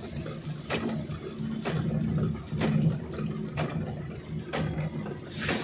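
Car windscreen wipers sweeping the rain-wet glass, a sharp swish about once a second, over the steady low hum of the engine and tyres heard inside the cabin.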